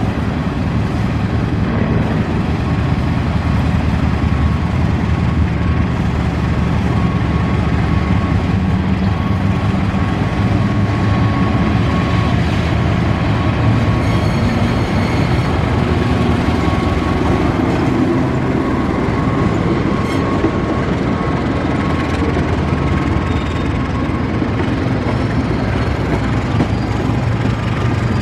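Diesel-electric locomotive hauling a passenger train past at close range, its engine running under the steady noise of steel wheels rolling on the rails.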